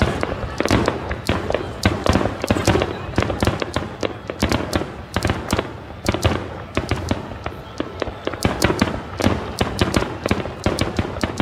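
Aerial fireworks barrage: many shells bursting in quick succession, a dense, irregular run of sharp bangs, several a second, over a continuous low rumble.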